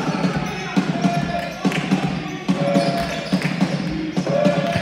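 Basketballs bouncing on a court floor: repeated, irregular thuds, several a second.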